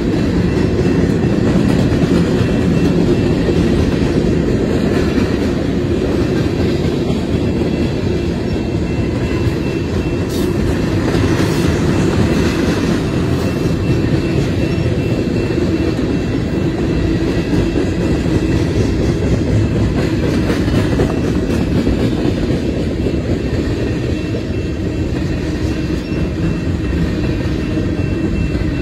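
Freight cars of a mixed freight train rolling past: a steady rumble of steel wheels on the rails, with faint thin ringing tones above it. Flatcars go by first, then tank cars.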